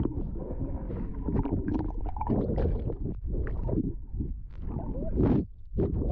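Pool water sloshing and splashing, heard muffled through a submerged GoPro Hero 8 Black's microphone. It is a dense, uneven low rumble with many short crackling splashes.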